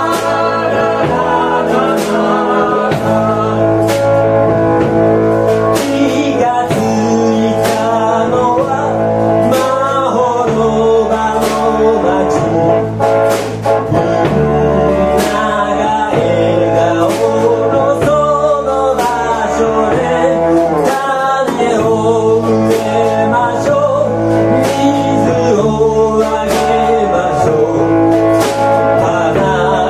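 A rock band playing live: bass guitar and a drum kit with regular drum and cymbal hits under men's sung vocals.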